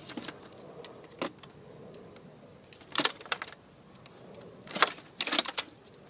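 Scattered metallic clinks and short rattles from parts and tools being handled while an air-conditioning unit is taken apart. There is one knock about a second in, a cluster of clatter around three seconds, and two more bursts near the end.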